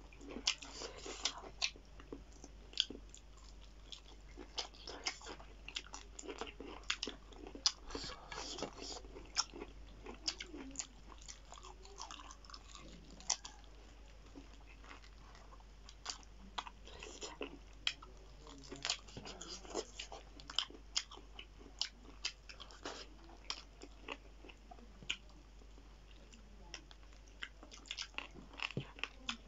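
Close-miked chewing and biting of two people eating chicken feet and french fries by hand: a continual, irregular run of sharp mouth clicks and smacks.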